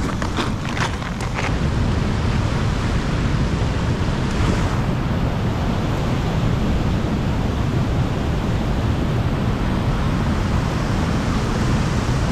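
Steady, loud rushing of water spilling over a dam.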